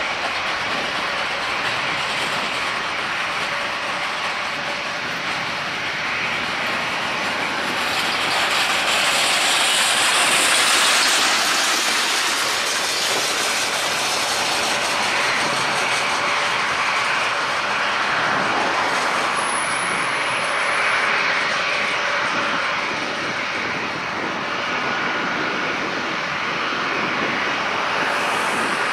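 Airbus A330-200's Rolls-Royce Trent 700 turbofans at takeoff thrust: a steady jet roar as the airliner rolls down the runway, lifts off and climbs away, loudest about ten seconds in.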